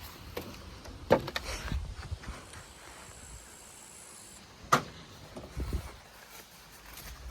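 Wooden outhouse door being worked on for removal: two sharp bangs about three and a half seconds apart, each followed by brief scraping and rattling of the wood.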